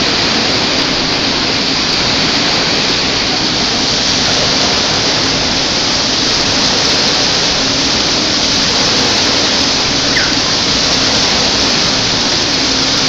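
Wave pool waves breaking and foaming across the shallow end: a loud, steady rush and wash of water.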